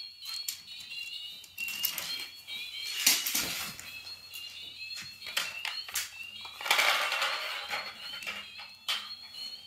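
Plastic toy cars clicking and clattering as they are handled and set down, with a louder clatter about seven seconds in. Short high chirping notes repeat faintly all the while.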